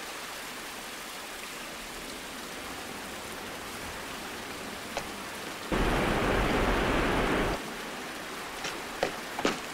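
A steady hiss, with a louder rushing noise lasting about two seconds starting a little past halfway, and a few sharp clicks near the end.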